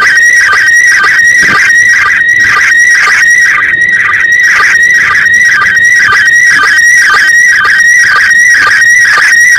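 Slow-scan television (SSTV) signal from the International Space Station received on an amateur radio handheld at 145.800 MHz: a steady tone near 2 kHz with a warbling beat that repeats two to three times a second as each image line is sent, over radio hiss.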